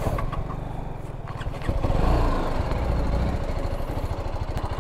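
BMW G310 GS single-cylinder motorcycle engine idling just after being started, with an even low pulse. Its sound swells for a second or so near the middle, then settles back to idle.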